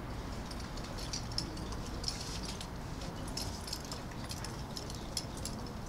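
Outdoor city background noise: a steady low rumble with many short, high clicks or chirps scattered through it.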